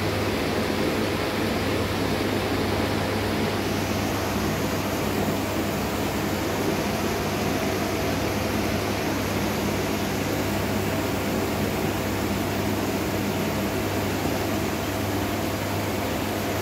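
Steady low hum under an even hiss and bubbling: aquarium air pumps running and air bubbling up through sponge filters in the tanks.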